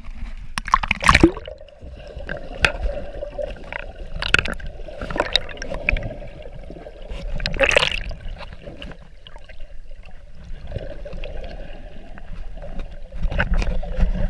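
Water heard through a submerged action camera: muffled splashing and gurgling, with a loud splash about a second in and another near eight seconds, over a steady hum.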